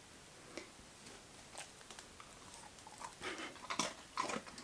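A dog crunching a small hard bone-shaped dog biscuit: a couple of faint clicks at first, then irregular crunches in the last second and a half.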